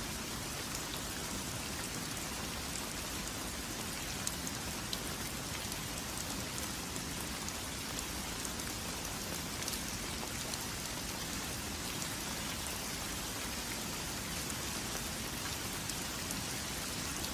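Steady rain falling, with scattered light ticks of individual drops.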